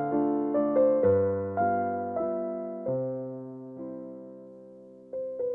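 Background piano music: single notes struck about every half second, slowing and fading almost away, then starting up again near the end.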